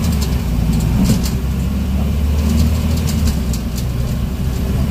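Scania N94UB bus's 9-litre five-cylinder diesel engine running, heard from inside the passenger saloon as a steady low drone, with light clicking rattles from the bodywork and fittings.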